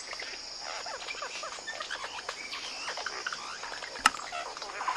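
Tropical forest ambience: a steady high insect drone under many short chirping calls, with one sharp click about four seconds in.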